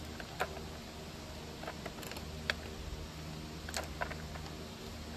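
Clear polycarbonate keycaps clicking, a handful of light irregular plastic clicks, as they are handled and fitted onto a mechanical keyboard's switches, over a steady low hum.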